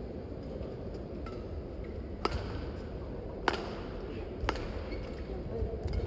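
Badminton rally: three sharp racket strikes on the shuttlecock, about a second apart, over steady background noise.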